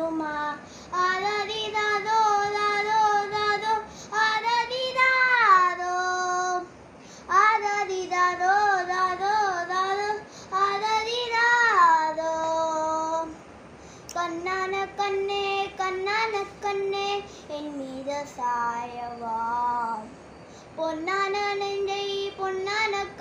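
A boy singing a song solo and unaccompanied, in phrases of a few seconds with long held, wavering notes and short pauses between them.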